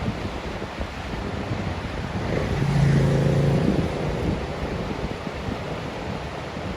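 Whitewater of a river rapid rushing, with wind buffeting the microphone. About two and a half seconds in, a steady low tone joins for just over a second, the loudest moment.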